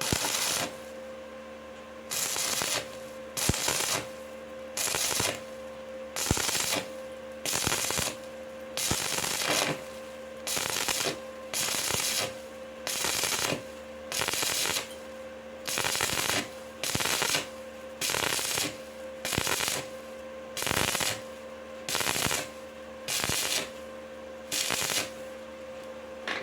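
Stick (MMA) welding arc on a steel pipe joint, crackling in short bursts about once every second and a half as the arc is struck and broken again and again: the intermittent-arc technique. A steady hum runs underneath.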